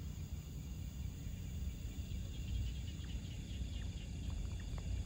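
Outdoor night ambience: a steady low rumble with insects chirping faintly throughout, and a few short, sharp chirps in the second half.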